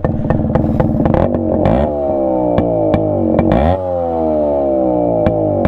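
Yamaha RX135 two-stroke single-cylinder engine, run with the exhaust's silencer core removed for a raw, open sound. The throttle is blipped twice, each time rising sharply and then dying away slowly, with sharp ticks all along.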